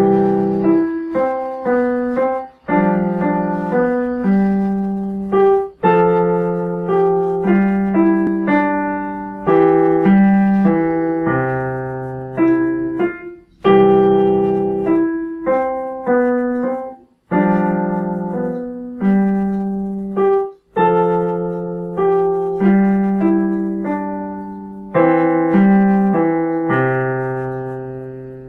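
Yamaha digital piano played with both hands: a simple children's piece, melody over lower notes, in short phrases with brief pauses between them. The last notes die away near the end.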